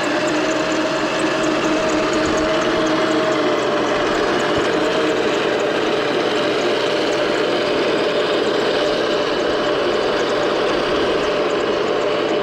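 Toy remote-control M1A2 Abrams tank running steadily: an even, unbroken mechanical whine with a hiss over it.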